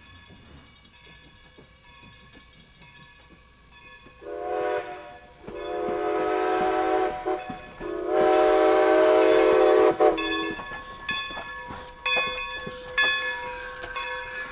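Steam whistle of Baldwin 2-8-0 locomotive No. 40, blown in several blasts, the last and loudest held for about two and a half seconds. After the whistle, a run of sharp exhaust chuffs as the engine pulls away.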